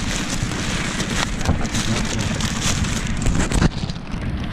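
Wind buffeting the microphone at sea, with crinkling and handling knocks from a plastic bag right beside it. Near the end the sound turns muffled as the bag covers the microphone.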